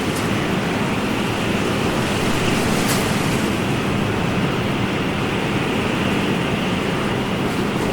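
Ocean surf: a steady, continuous wash of waves at an even level, with no single breaker standing out.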